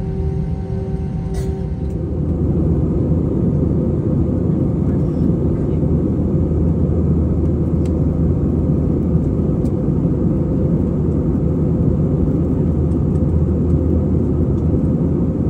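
Steady low rumble of an airliner heard from inside the cabin, stepping up a little about two seconds in.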